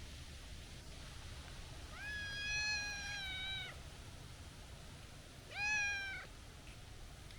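Tortoiseshell-tabby cat meowing twice in a high, kitten-like voice: one long meow about two seconds in, then a shorter one past the middle.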